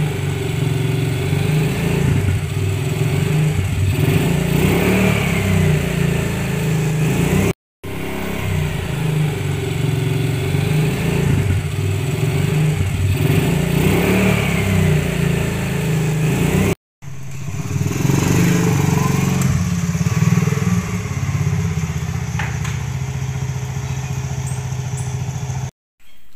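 Small step-through motorcycle's engine idling steadily, broken by three brief, sudden gaps of silence.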